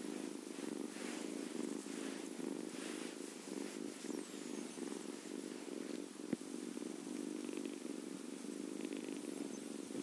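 Scottish Fold kitten purring steadily while being stroked, with one short click about six seconds in.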